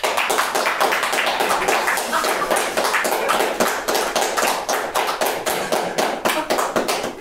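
Audience applauding: many hands clapping steadily for about seven seconds, dying away at the very end.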